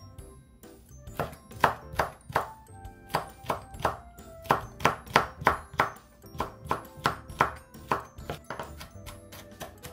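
Chef's knife chopping red chili peppers on a wooden cutting board: quick runs of sharp knife strikes against the board, about two a second, over background music.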